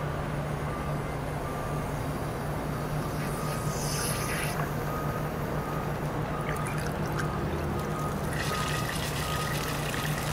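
A steady low mechanical hum, like a running engine, with a faint high tone that comes and goes in short beeps.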